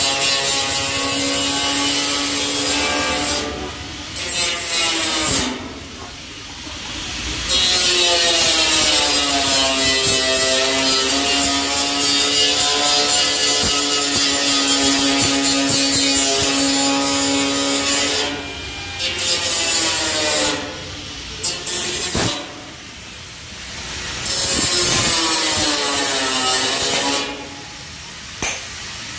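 Compressed-air paint spray gun spraying a motorcycle fuel tank: a loud hissing whistle at a steady pitch that sags slightly and recovers. It cuts off several times for a second or two as the trigger is let go, then starts again.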